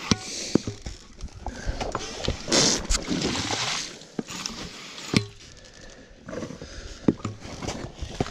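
Hand-held mud-shrimp pump, a metal pipe with a plunger, worked into a flooded burrow: water and mud sloshing and sucking, with a few sharp knocks.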